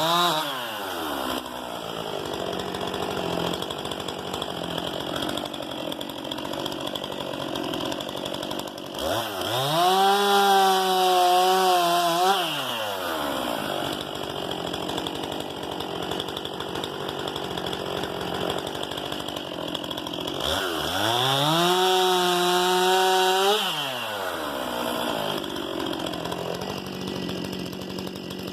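Stihl MS 261 C-M two-stroke chainsaw idling, its engine dying down from a high rev just as the sound begins. It is then throttled up twice, about a third of the way in and again past two-thirds, each time climbing to a high steady pitch for about three seconds before falling back to idle.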